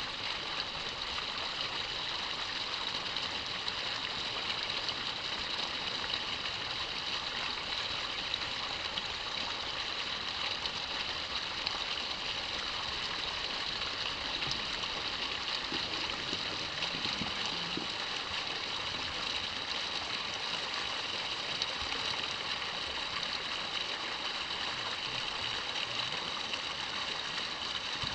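Steady, even outdoor ambient hiss, strongest in the high range, with faint steady high tones running through it.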